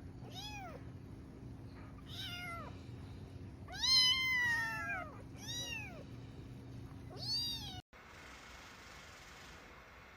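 A cat meowing five times in a row, the longest and loudest call about four seconds in. The sound cuts off abruptly near the end, leaving a faint hiss.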